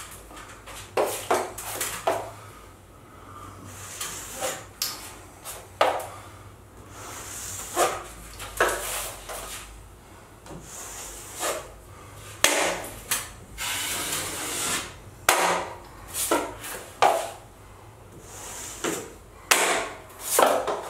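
Drywall knife scraping joint compound on and off a mud pan and spreading it along the top of a wall, in irregular sharp scrapes and clacks with a few longer drawn-out strokes.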